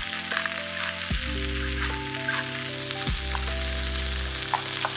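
Steady sizzling of roast beef frying in a pan, under background music with held chords that change every second or two, and a few light spoon clicks in a steel bowl near the end.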